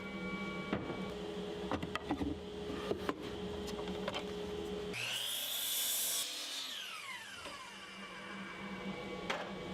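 Power saw cutting treated 1x4 boards: knocks and clacks of boards being handled, then about five seconds in the saw runs up and cuts for about a second, and its whine falls away as the blade spins down.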